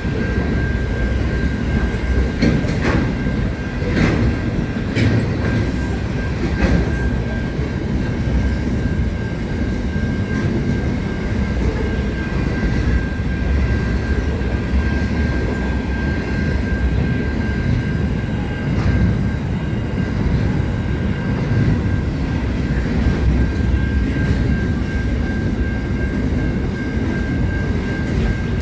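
A freight train of container wagons rolling past: a steady heavy rumble of wheels on rail, with sharp clicks over the rail joints in the first several seconds and a thin steady high-pitched tone held throughout.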